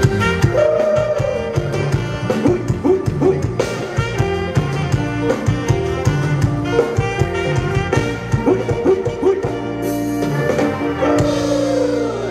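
Live Thai ramwong dance music from a band: saxophone and other brass over a steady drum-kit beat, starting suddenly at the outset.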